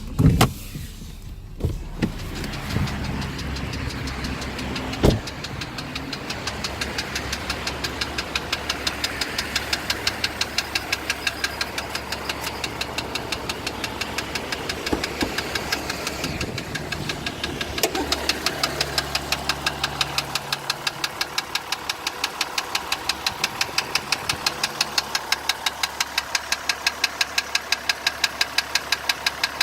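2015 Jeep Grand Cherokee's 3.0 L EcoDiesel V6 running with a regular, evenly repeating knock, a few knocks a second, the engine knocking the video is about. A few loud thumps come in the first few seconds.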